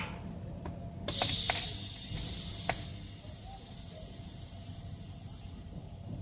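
TIG welding torch on stainless steel pipe: the arc strikes about a second in and burns with a steady hiss, with a few sharp clicks in its first two seconds, easing slightly later and fading near the end.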